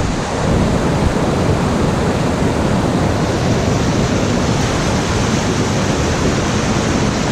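Steady, loud rush of water pouring down a mountain waterfall close to the microphone.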